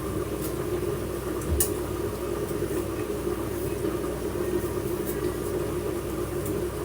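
Steady bubbling and hiss of a pot boiling on the stove, with a single light knock about a second and a half in.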